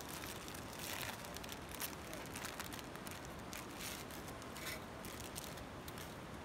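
Dry instant-noodle blocks crackling as they are broken by hand, with the rustle of a foil seasoning sachet, as scattered small crackles and ticks over a steady hiss.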